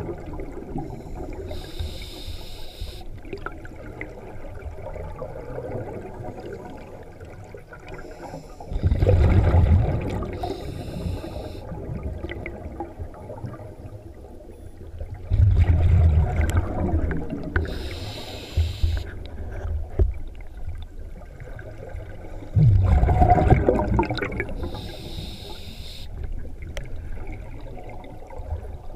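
Scuba diver breathing through a regulator underwater: a short hiss on each inhale, then a few seconds later a loud bubbling burst as the breath is exhaled. The cycle comes about every seven seconds, with three exhalations in all.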